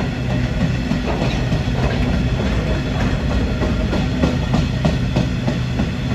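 A freight train's covered hopper wagons rolling past at speed: a steady rumble with the clickety-clack of the wheels over rail joints, several clicks a second from about a second in.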